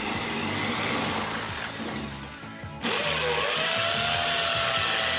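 Cordless drill boring into a concrete block with a masonry bit, in two runs. The first eases off about two and a half seconds in, and a louder second run starts about three seconds in with a steady whine. Background music plays underneath.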